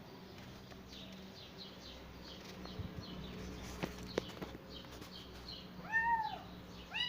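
Small birds chirping repeatedly in the background, with a couple of sharp clicks around four seconds in. About six seconds in a cat meows once, a rising-then-falling meow and the loudest sound, and starts another meow at the very end.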